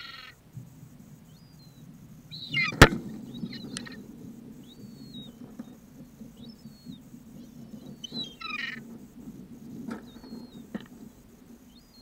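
Gulls calling close overhead: a few loud, rough calls and many short thin high cries. A single sharp knock about three seconds in is the loudest sound.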